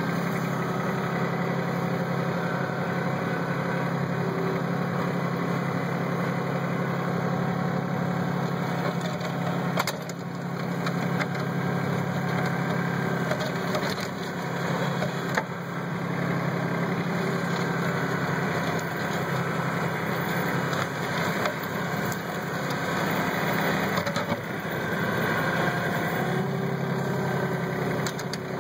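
Kubota B1700 compact tractor's three-cylinder diesel engine running steadily while plowing snow, with a few sharp knocks and scraping sounds from the front blade working over the snowy dirt road.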